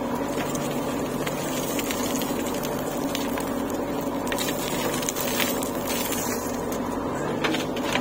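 JCB 3DX backhoe loader's diesel engine running steadily under load as the backhoe arm scoops soil from the pit and swings it up over a tractor trolley, with scattered light clicks and rattles.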